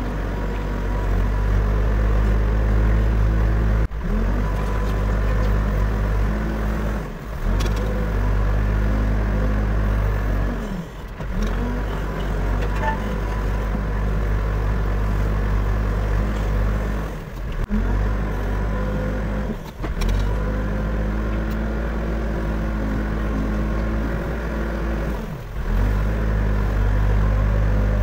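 Backhoe loader's diesel engine running steadily under work, a deep hum with brief dips every few seconds.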